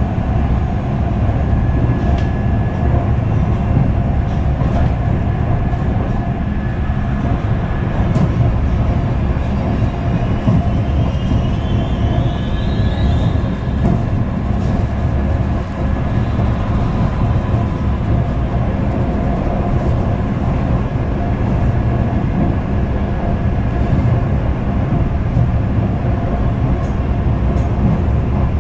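Steady low rumble of a moving passenger train, heard from inside the carriage, with a brief faint rising whine near the middle.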